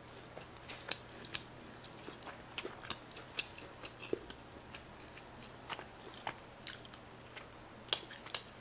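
Close-miked chewing of skirt steak: many short, irregular wet mouth clicks and smacks.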